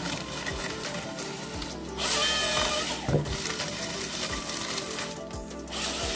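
Nisula 555C harvester head's hydraulic chain saw cross-cutting a log twice, about two seconds in and again near the end, over the steady running of the excavator, with background music.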